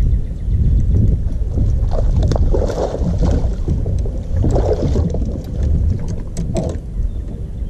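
Wind rumbling on the microphone, with bursts of splashing and handling noise about two, three and five seconds in as a hooked bass is landed at the side of a fishing kayak.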